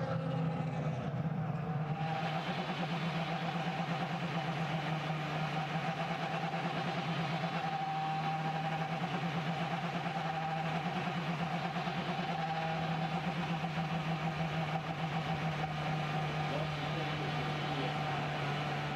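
Honda V8 IndyCar engine running flat out at a steady high pitch, heard from the car's onboard camera, with the note holding nearly constant as the car laps at speed.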